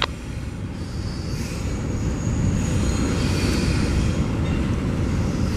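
Freight train of covered hopper and tank cars rolling past, a steady rumble and clatter of wheels on rail. A faint high squeal of wheels comes and goes through the middle.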